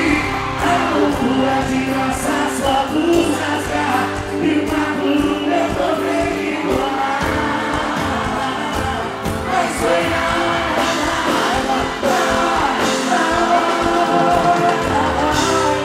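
Sertanejo duo singing live with their band over a steady beat.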